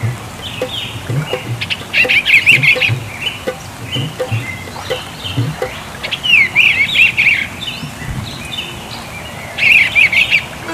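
Eastern bluebird singing: short warbled phrases repeated every few seconds, with softer notes between them.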